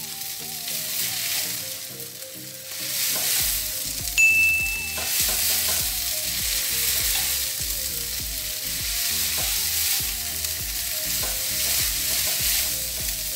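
Rice vermicelli sizzling in a hot frying pan as it is stir-fried and tossed with chopsticks, a steady hiss throughout.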